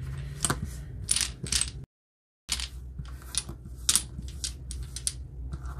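Domino tiles clicking and clacking against each other on a tabletop as they are shuffled face-down and slid out to be picked, in many quick irregular clicks. The sound cuts out completely for about half a second about two seconds in.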